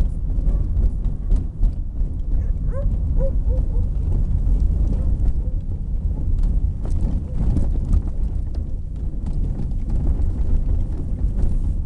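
A moving car, with a steady low rumble of road and wind noise and irregular knocks throughout. A few short squeaks come about three seconds in.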